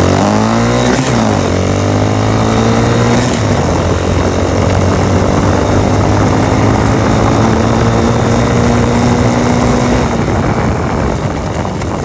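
Yamaha TT-R90's small four-stroke single-cylinder engine accelerating hard, its pitch climbing and dropping twice in the first few seconds as it shifts up. It then holds a high, slowly rising rev and fades near the end.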